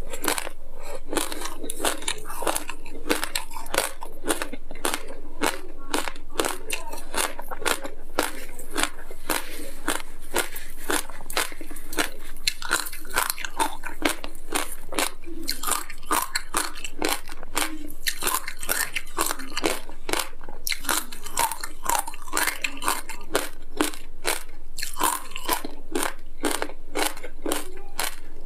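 Close-up crunching and chewing of frozen passion fruit coated in black sesame seeds: rapid, brittle crackles of ice and seeds breaking between the teeth, several a second and without pause.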